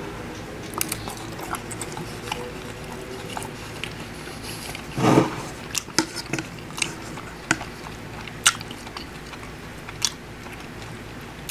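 A man chewing and biting sauced meatless nuggets and fried rice close to the microphone, with sharp clicks of a metal fork against a ceramic bowl scattered through. A louder, longer noise comes about five seconds in.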